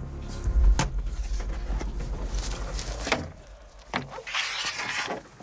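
Access panel on the fuselage of a Tigre attack helicopter being unlatched and opened to reach the 30 mm ammunition boxes: a few sharp latch clicks and a scraping swing of the panel, over a low rumble.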